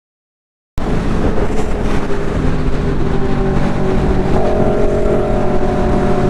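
After a brief silence, a motorcycle engine running steadily at speed over road and wind noise, its pitch holding nearly level and stepping up slightly a little past four seconds in.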